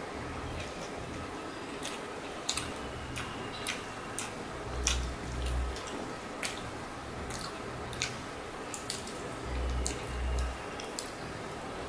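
Close-up eating sounds of rice and egg curry eaten by hand: wet chewing with many sharp mouth clicks and smacks. Two pairs of low thuds come about five seconds in and again near the end.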